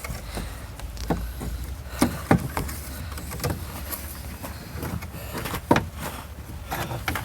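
A magnet on a rod being worked down inside a Volvo 850 door, knocking against the door's sheet metal and parts. It makes scattered light clicks and taps over a low steady hum.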